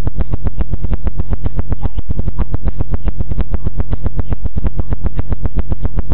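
Loud, deep bass tone playing continuously, with a fast, even pulse running through it.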